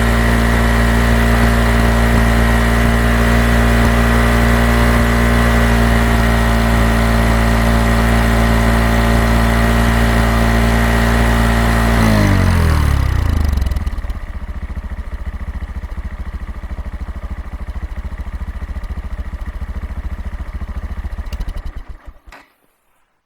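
Honda Monkey 125's single-cylinder engine held at steady raised revs through its exhaust. About twelve seconds in it drops back to a pulsing idle, then is switched off near the end and cuts out.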